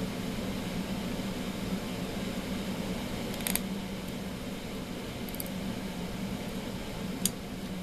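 A small driver tightening the set screw of a shaft collar on a metal rod, giving a few faint metallic clicks over a steady low hum.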